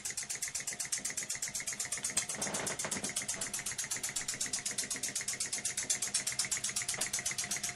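Small electrically heated model engine running steadily, giving a fast even clatter of about ten beats a second. It runs smoothly now that its heating element is insulated with mica sheets and ceramic beads.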